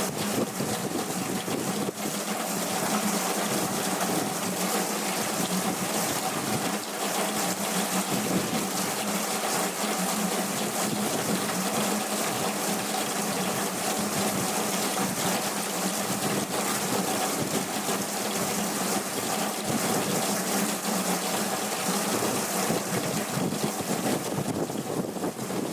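Heavy hurricane rain pouring down in a steady, dense rush.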